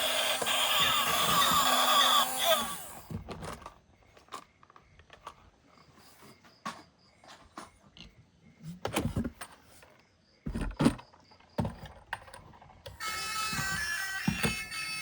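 A toy's electronic siren-like sound plays for the first few seconds and cuts off. Then come scattered plastic clicks and knocks from toys being handled. Near the end a steady electronic tune starts.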